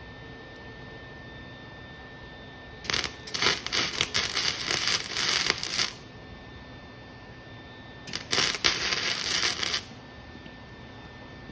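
Electric arc welding: two short welds of dense, sputtering crackle, the first about three seconds long and the second about two seconds, a couple of seconds apart.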